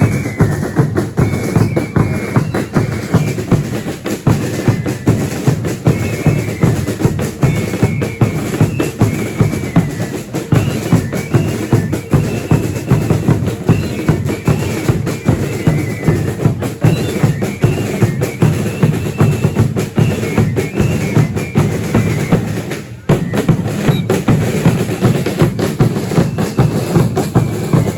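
Religious dance band's bass drums and snare drums beating a steady march rhythm, with a high melody piped over them. The drumming breaks off briefly about three-quarters of the way through, then picks up again.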